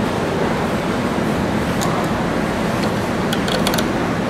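Steady hiss of room noise, with light metal clicks: one or two near two seconds in and a quick cluster around three and a half seconds, from small screws and a hex key being handled at the motor bracket.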